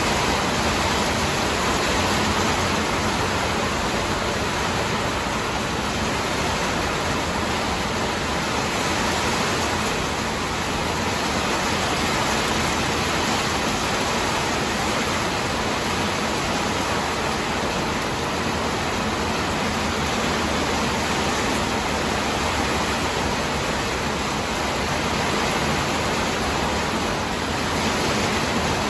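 A rain shower falling steadily with some wind, heard as an even, unbroken hiss.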